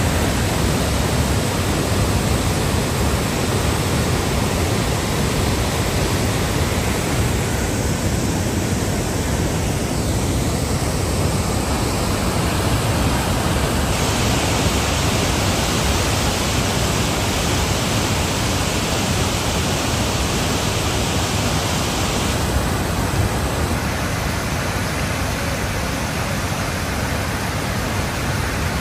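Steady rushing of a large waterfall, a wide curtain of water pouring over a rock ledge into churning water below. Its hiss turns a little brighter for several seconds in the middle.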